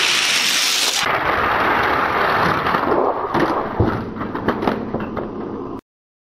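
Die-cast Hot Wheels cars rolling down a plastic drag-race track: a loud, steady rolling rumble, with sharp clicks and knocks in the second half as the cars run down the track segments to the finish gate. It cuts off suddenly near the end.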